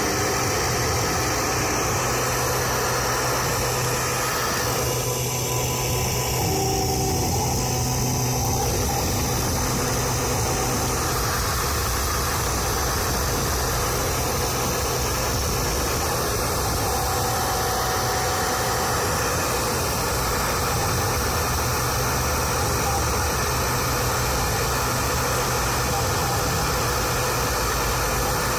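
CNC 3040 router's spindle running steadily while milling a printed circuit board with a V-bit: a constant low hum under an even hiss.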